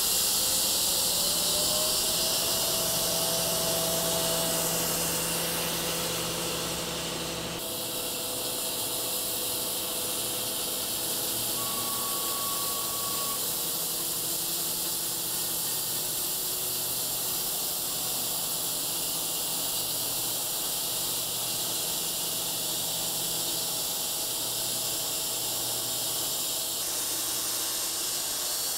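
Wide custom-built sawmill cutting through a burly Manitoba maple (box elder) log: a steady hiss of the blade in the wood, with a faint hum from the mill underneath. The sound changes abruptly about eight seconds in.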